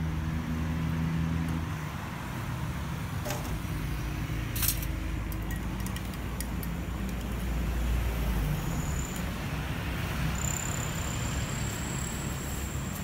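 Road traffic passing close by: a vehicle engine's hum that fades about two seconds in, then a steady rumble of passing vehicles that swells about two-thirds of the way through. A couple of light clinks near the middle.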